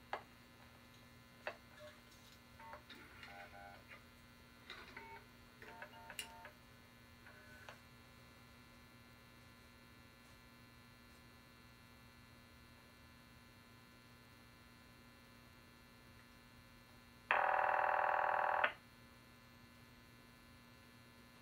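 Telephone line audio over a monitor speaker during call setup through a toll switchboard and a step-by-step exchange. Switching clicks and short bursts of signalling tones come in the first several seconds over a steady line hum. The line then goes quiet, and about 17 seconds in one buzzy ringback tone sounds for just over a second.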